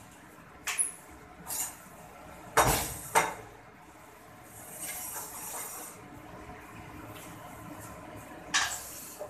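Kitchen clatter: a handful of sharp clinks and knocks of pots, dishes and utensils, the loudest two about three seconds in and another near the end. A soft hiss rises briefly around the middle.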